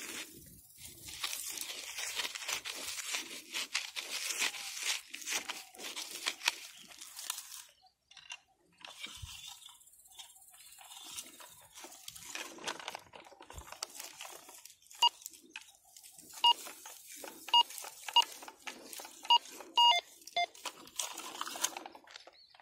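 A hand digger scraping and crunching through dry soil and straw. From about two-thirds of the way in, a metal detector gives a run of short beeps, one or two a second, as its coil is passed over the hole: the signal of a metal target in the loosened soil.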